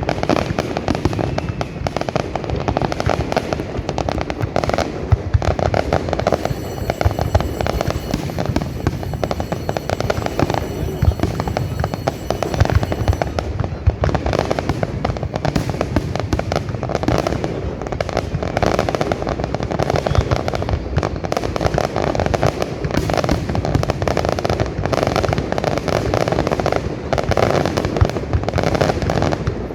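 Fireworks going off in a continuous rapid barrage of bangs and crackles.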